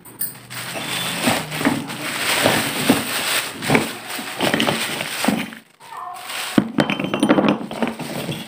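Plastic bag crinkling and rustling as stacked fired-clay diyas (small earthen bowls) are drawn out of it, then the clay pieces clinking against each other for the last couple of seconds.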